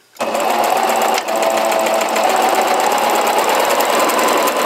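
Singer Brilliance 6180 sewing machine stitching a test seam at steady speed: motor whine with rapid needle clatter, starting suddenly just after the start with a brief falter a little after a second in. It is sewing cleanly, the sign that the top thread and needle are threaded correctly.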